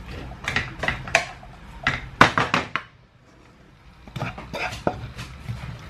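Kitchenware clattering as a frying pan is lifted and tipped over a ceramic serving dish: a series of sharp knocks, loudest about two seconds in, then a short lull before more knocks.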